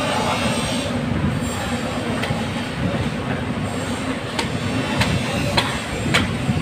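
A steady low rumble and hum of running machinery. Over it come a handful of sharp clicks and knocks in the second half, as a knife cuts around the head and gills of a large bluefin tuna on a concrete floor.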